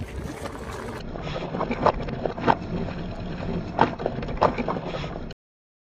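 Wind rumbling on the microphone outdoors, with several sharp knocks and clicks. The sound cuts off abruptly a little after five seconds in.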